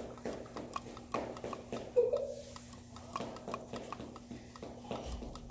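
Faint scattered clicks and taps as a leashed Rottweiler moves about and sniffs on a tile floor, with one brief voice-like sound about two seconds in.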